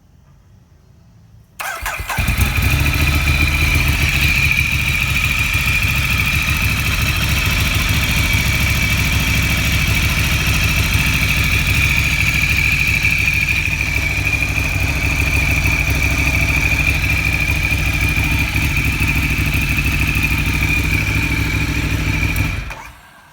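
Ducati L-twin motorcycle engine started and left idling, with a steady high-pitched whine over the low beat of the engine, then switched off about twenty seconds later.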